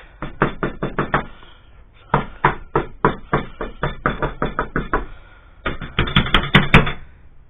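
Rapid knocking on a door, several knocks a second, in four or so bursts with short pauses between them. No dog barks in reply.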